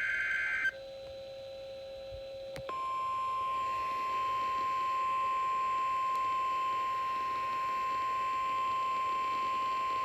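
NOAA Weather Radio Emergency Alert System signal. The tail of a buzzy SAME data burst cuts off under a second in. After about two seconds of faint hum, the steady 1050 Hz warning alarm tone starts and holds, announcing a weather alert.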